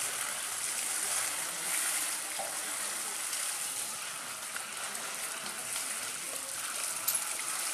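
Water spraying steadily from a garden hose onto an elephant and the wet ground, a constant splashing of falling water during the elephant's bath.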